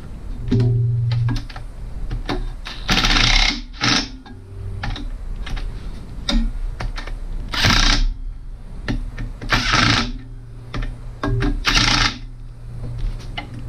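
Cordless drill/driver running oil pan bolts into a Jeep 4.0 inline-six: the motor whirs in short spurts. Several times its clutch clatters in a sharp half-second burst as a bolt snugs up.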